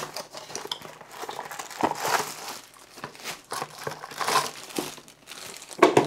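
Packaging being handled: a cardboard box sliding and rubbing, and clear plastic bags around cables crinkling in irregular rustles, with a few light knocks.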